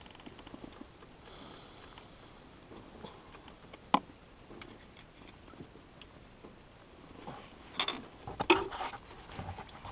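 Faint rustling and scattered clicks of hands working on a Ural motorcycle's engine, which is not running. There is one sharp click about four seconds in, and a cluster of louder clinks and knocks near the end.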